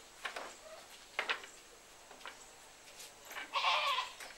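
Goat bleating: a short faint bleat near the start and a louder hoarse bleat about three and a half seconds in, with a couple of faint short knocks about a second in.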